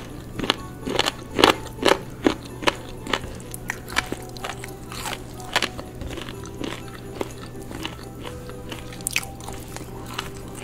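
Eating by hand: fingers squishing and mixing rice and chicken curry on steel plates, with mouths chewing, heard as a string of irregular short wet smacks and clicks, densest in the first few seconds.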